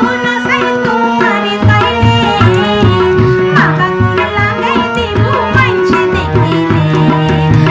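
Chittagonian regional folk song: a woman singing a melody that bends and glides over instrumental accompaniment, with a steady, regular drum beat underneath.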